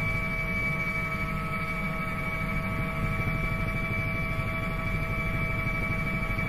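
Helicopter in flight heard from inside the cabin: a steady high turbine whine of several held tones over a low rotor rumble.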